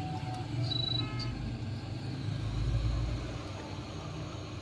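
Road traffic: a motor vehicle's low rumble swells and fades, with a few short horn-like tones about a second in.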